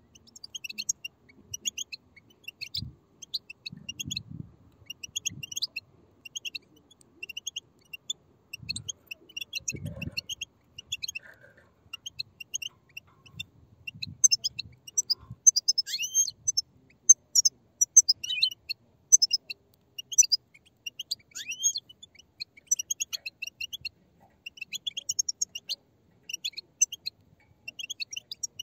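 A group of European goldfinch chicks calling together: a continuous, rapid chatter of many short high notes overlapping, with a few brief upward-sliding notes in the middle. A few soft low thumps come in the first third.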